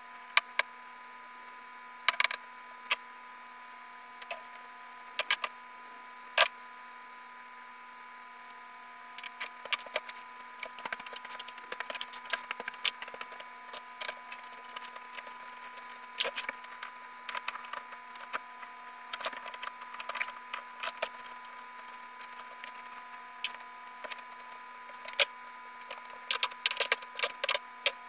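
Tools and wooden pieces being handled on a workbench: scattered sharp clicks and knocks, thickening into a busy stretch of clattering in the middle and a quick run of clicks near the end, over a steady hum.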